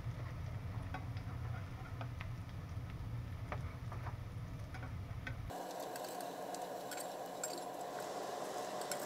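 Slices of Spam frying in hot fat in a skillet: crackling and popping, with clicks and scrapes of a spatula against the pan as slices are lifted out. A low steady hum underneath stops abruptly about halfway through, and a higher steady hiss takes over.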